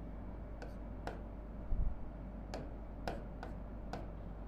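Pen tip tapping on an interactive display board while writing: about six sharp ticks at uneven intervals, with one soft low thump about two seconds in.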